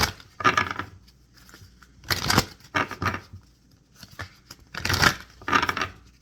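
Tarot cards being handled and shuffled: a handful of short papery swishes and slaps, irregularly spaced about half a second to two seconds apart.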